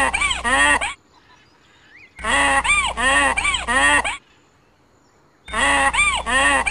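Loud animal calls: a run of four arching, honking calls, repeated three times in identical bursts with a short gap between, like a sound clip played on a loop.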